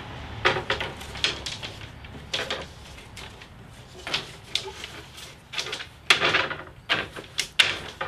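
Thin cedar boat-building strips clattering against one another and on the saw table as a bundle of them is handled and their ends evened up: an irregular series of sharp wooden clacks, some in quick clusters.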